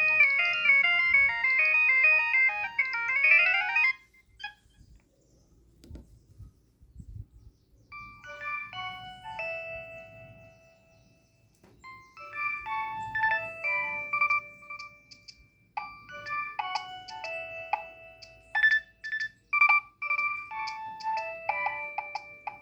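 Nokia 3120 ringtones playing: a polyphonic ringtone ends with a fast rising run of notes about four seconds in. After a few seconds of quiet, another electronic ringtone melody starts and plays on.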